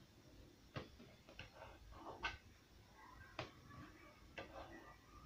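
Faint, irregular clicks and taps of a kitchen knife on the tabletop as rolled dough is cut into pieces, with soft handling of the dough between them.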